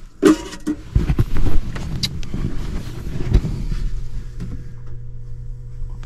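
Knocks and rattles as the air handler's sheet-metal blower compartment is handled, then a steady low hum from about halfway through.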